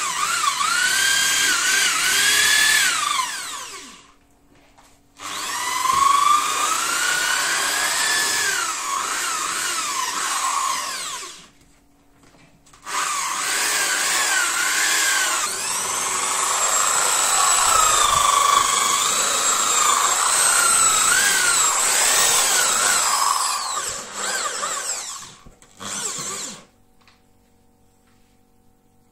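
Corded electric drill spinning a round scrubbing brush on sofa upholstery, its motor whine wavering in pitch. It cuts out twice for about a second and stops for good near the end.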